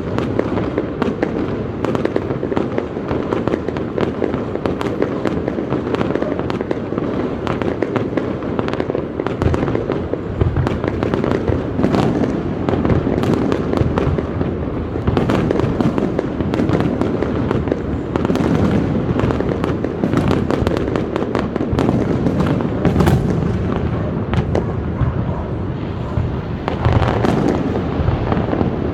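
Large fireworks display going off without a break: a dense run of bangs and crackling over a continuous low rumble.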